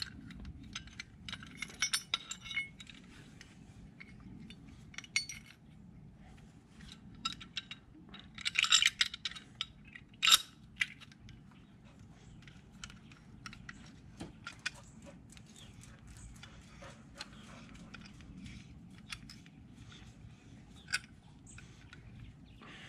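Light metallic clinks and clicks of tools working on a brake caliper while its pistons are pressed back, irregular, with a louder run of clinks about nine seconds in and a sharp click just after ten seconds.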